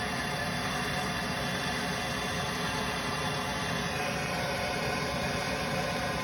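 Soldering torch flame burning with a steady hissing rush, unbroken and even in level.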